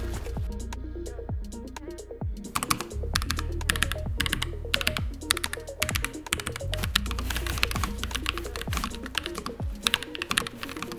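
Rapid typing on a Keychron K3 Max low-profile mechanical keyboard with Gateron switches, a dense run of key clicks that thins out briefly about a second in, then picks up again. Background music with a steady beat plays underneath.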